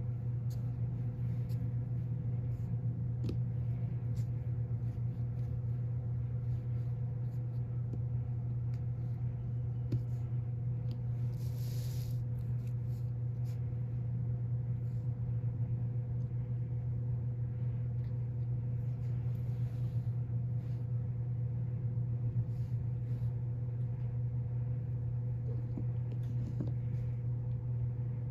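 Hands rolling a clay coil on a canvas-covered board, heard as soft scattered rubbing, light taps and a couple of brief swishes. A steady low hum with a faint higher tone runs underneath and is the loudest thing.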